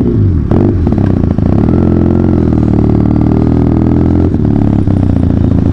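Benelli TNT 300's parallel-twin engine running through an aftermarket SC Project exhaust as the motorcycle is ridden off at low speed. The engine note dips and rises with the throttle in the first half-second, then holds fairly steady with slow rises and falls.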